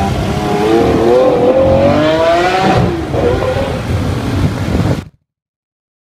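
Lamborghini Aventador LP700-4's V12 engine revving hard as the car pulls away. The pitch climbs for about two seconds, then falls and runs on unevenly. The sound cuts off abruptly about five seconds in.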